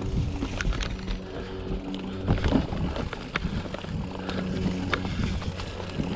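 A vehicle running, with a steady low engine hum and irregular knocks and rattles, which are densest in the middle of the stretch.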